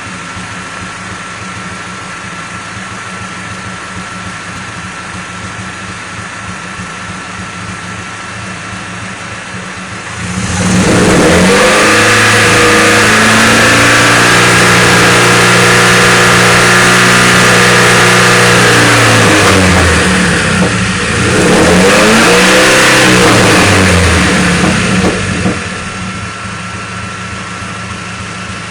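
Car engine idling steadily, then revved up about a third of the way in and held at raised revs for several seconds. The revs dip, rise again briefly, and fall back to idle near the end. The owner reports a misfire at low RPM, with the engine seeming fine after an initial stumble.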